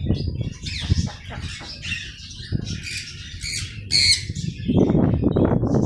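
Birds calling in a quick, irregular run of short chirps and squawks. Under them runs a low rumbling noise that is loudest near the end.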